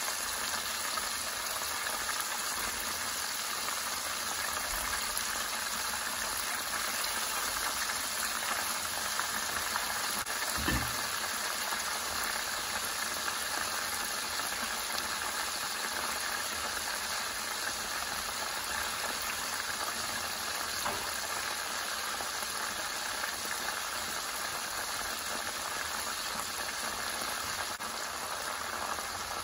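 Breaded ham and cheese rolls deep-frying in hot oil in a pan, the oil sizzling and bubbling steadily, with one soft low thump about ten seconds in.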